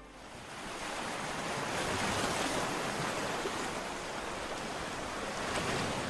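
Sea waves washing, a steady rushing hiss that swells gently about two seconds in and again near the end.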